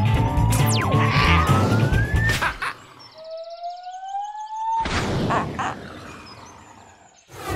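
Cartoon background music with a whistle gliding upward over it. The music stops about 2.7 seconds in, and a second rising whistle glide follows on its own. About five seconds in, a noisy clattering tumble sound effect begins and fades away.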